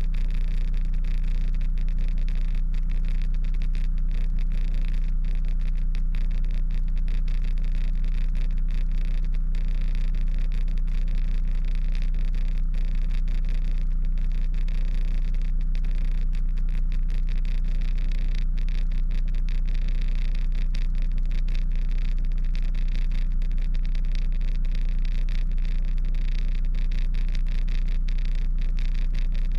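Kenworth prime mover's diesel engine idling steadily, a constant low hum picked up by a camera mounted on the outside of the cab.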